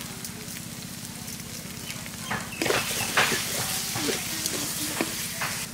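Thick taro-greens mash frying with a low sizzle in a metal wok. From about two seconds in, a spatula scrapes and stirs it around the pan in a run of short strokes.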